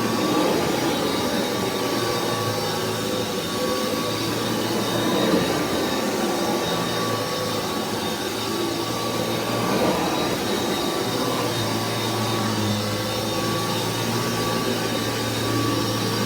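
Reconditioned Kirby Legend II upright vacuum cleaner running steadily through its first vacuuming, a constant whine over the motor's rushing noise, with a lower hum that swells and fades.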